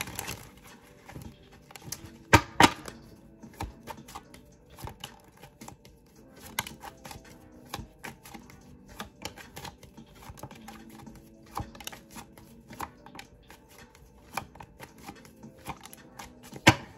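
A deck of tarot cards being shuffled and handled: many light, irregular clicks and card flicks, with a few sharper taps about two and a half seconds in and near the end.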